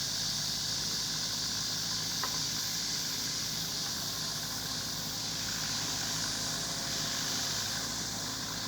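Steady low engine hum of idling machinery, with a constant high hiss over it.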